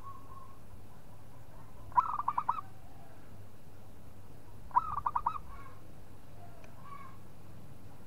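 Caged zebra dove (perkutut) cooing: two quick phrases of about five rapid staccato coo notes, roughly three seconds apart. It is a frequent singer kept as a lure to draw other doves into answering.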